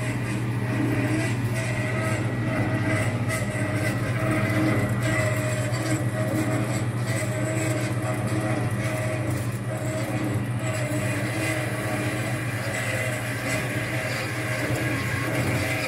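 Dayton 4YG31 horizontal metal-cutting band saw (1.5 hp motor) running steadily, its band blade cutting into a metal tube held in the vise. Over a constant motor hum, a whine pulses about once a second.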